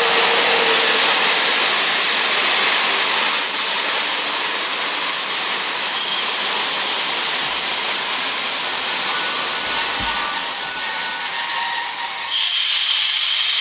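Train of passenger coaches rolling past: a steady loud rush of wheels on rail. Thin high wheel squeals come in near the end.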